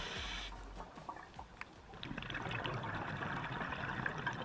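A scuba diver's exhaled air bubbling out of the regulator underwater, with scattered small clicks; the bubbling thickens about two seconds in.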